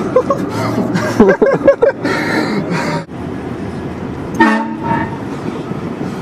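A short, loud blast of a train horn about four and a half seconds in, cutting off after about half a second. It comes after a stretch of louder, irregular sound in the first two seconds.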